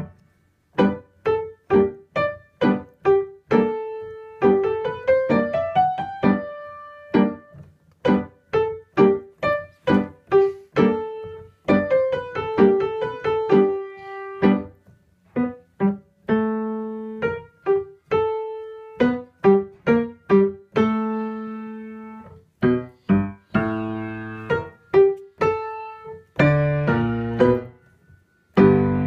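Piano music: a melody of separate struck notes, each fading away, with quick rising runs now and then and fuller, longer-held chords near the end.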